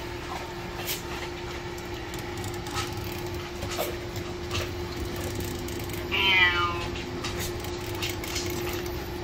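Domestic cat meowing once, a short falling call about six seconds in, over a steady low hum and scattered faint clicks.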